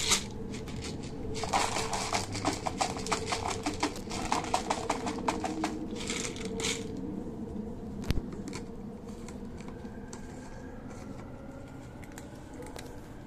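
Dry cat kibble poured into a plastic bowl: a dense rattle of pellets hitting the plastic for about four seconds, then a short second pour. A single low knock follows, then only faint ticking as the cat starts crunching the kibble.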